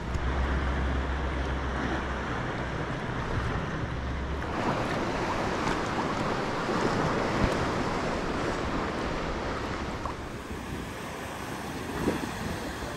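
Sea waves washing and wind, with wind buffeting the microphone, heaviest in the first few seconds. The sound changes abruptly about four seconds in and again near ten seconds.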